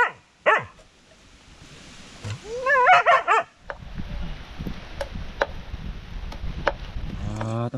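A hunting dog yelping and whining in wavering, high-pitched cries: a short yelp about half a second in, then a longer wavering bout around three seconds in. This is followed by a few seconds of low rustling with scattered clicks.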